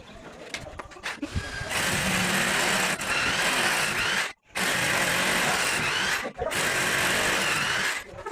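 A power tool running in three long stretches, each one stopping abruptly.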